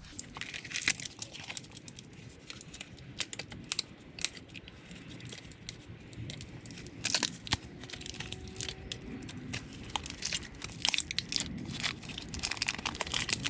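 Hands working on brake pads and their fittings: a run of small clicks and taps mixed with crinkling, tearing rustles, busier in the second half.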